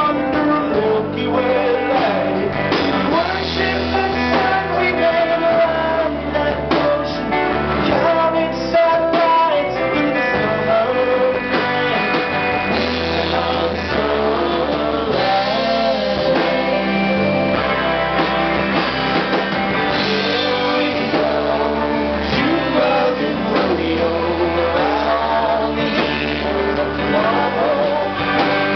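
Live rock band playing a song: electric guitars with a man singing lead at the mic.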